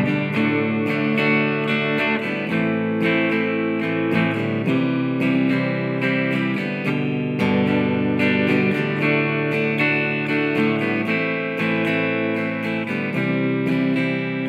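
Electric guitar played through a Marshall MG50CFX combo amp on its clean channel, picked up by a condenser mic in front of the amp: a steady rhythm of strummed chords that ring out, with no distortion.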